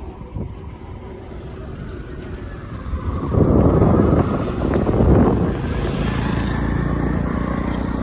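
A motor vehicle going by close, with wind on the microphone; it grows suddenly loud about three seconds in and stays loud with a steady engine note.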